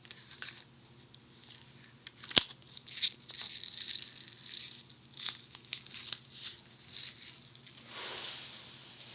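Funny Foam foam-bead clay squished and pressed against a dummy head's ear microphone, crackling and popping in irregular bursts as the sticky beads pull apart, with one sharp click a couple of seconds in.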